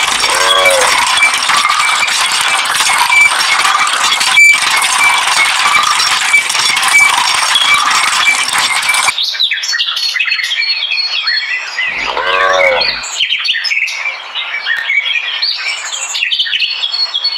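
Birds chirping, over a steady hiss that stops abruptly about nine seconds in. A cow moos twice, once right at the start and again about twelve seconds in.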